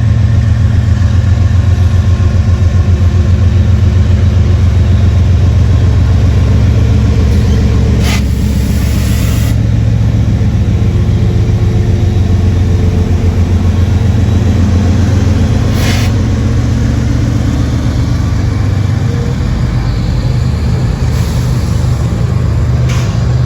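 Norfolk Southern diesel-electric freight locomotives working hard under load as they haul a manifest train upgrade, a deep, pulsing engine throb. Brief hisses about eight and sixteen seconds in.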